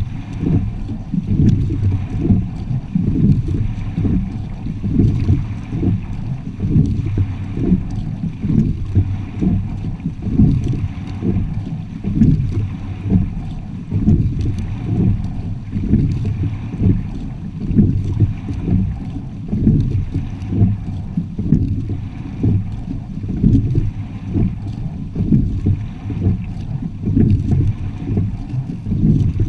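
Low, muffled rushing of water along the hull of a moving quad sculling shell, mixed with wind buffeting the microphone.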